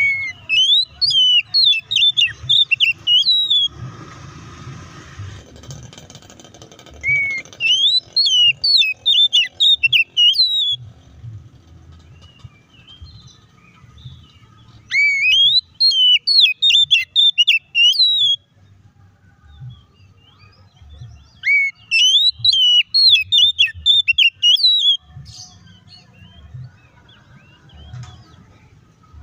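Oriental magpie-robin singing loud phrases of rapid, sharp whistled notes that rise and fall quickly. There are four phrases, each about three seconds long, a few seconds apart.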